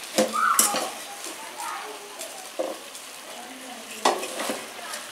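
Wooden spoon stirring chunks of beef in a metal cooking pot, scraping and knocking against the pot's sides, with the loudest strokes near the start and about four seconds in.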